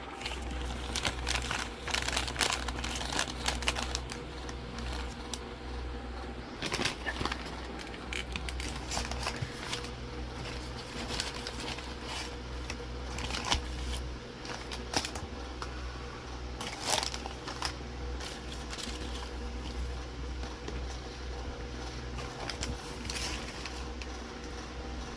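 Irregular crinkling and light clicks, as of things being handled, over a steady low hum.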